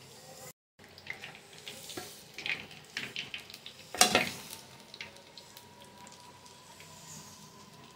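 Breaded chicken drumsticks sizzling and crackling as they deep-fry in hot oil, with a silicone spatula stirring and turning them in the pan. A sharp knock about four seconds in is the loudest moment, and the sound drops out briefly about half a second in.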